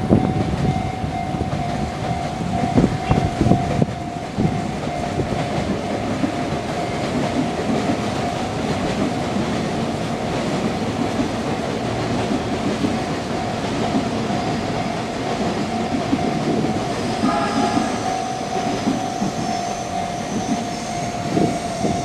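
Sotetsu electric commuter trains passing over a level crossing, with wheels clattering over the rail joints and a steady rumble. Throughout, the crossing's electronic alarm bell keeps ringing, a single high tone.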